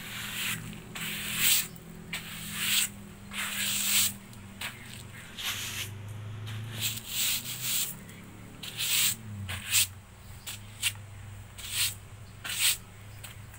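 A small broom sweeping a surface: repeated short brushing strokes, irregular, about one or two a second.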